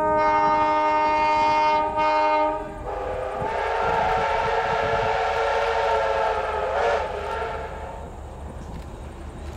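A train's locomotive sounding its warning: a bright steady note about two seconds long and a short second blast, then a lower, fuller chord with a rushing hiss for about four seconds that fades away, over the low rumble of the moving train.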